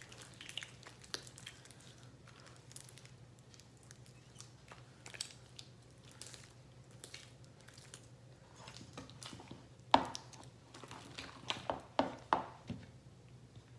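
Slime being worked during the activating stage: soft, scattered wet squishes and small clicks. There is a sharper pop about ten seconds in and a run of louder squelches after that.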